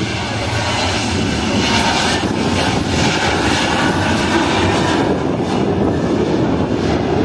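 Jet airliner's engines running loud, a steady noisy rush that builds over the first couple of seconds and then holds.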